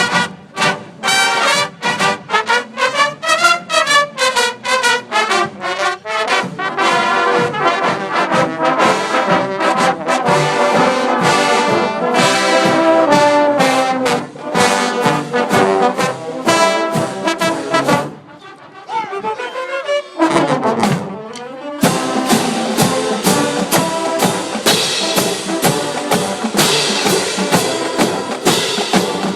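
Marching band brass, trumpets and trombones, playing a fast, rhythmic tune. About two-thirds of the way through the playing thins out to a few sliding notes, then the full band comes back in louder.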